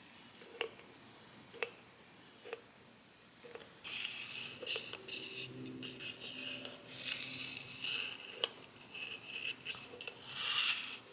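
Tacky way oil being worked by hand onto a milling machine's ways: four light clicks about a second apart, then several seconds of uneven rubbing and squishing.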